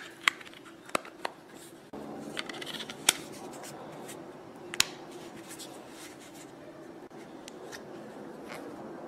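Sharp plastic clicks and rubbing as a battery is pressed into an LG 440G flip phone and its plastic back cover is snapped into place, a handful of separate clicks spread over the first five seconds.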